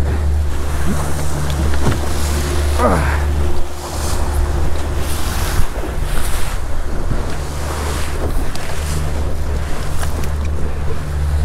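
Boat engine running steadily at trolling speed with a low hum, water rushing along the hull and wind buffeting the microphone.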